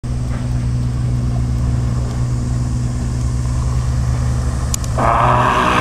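Motorcycle engine running at a steady, even speed, with a loud rush of hiss coming in about five seconds in.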